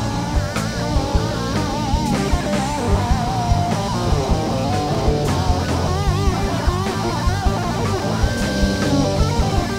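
Live band playing an instrumental passage of a Christian pop-rock song: a guitar plays a bending, vibrato-laden lead over the bass and a drum kit.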